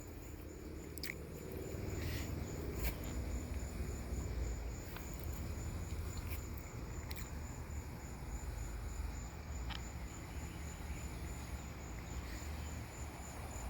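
A cricket chirping in a rapid, even, high-pitched pulse, over a low background rumble with a few faint clicks.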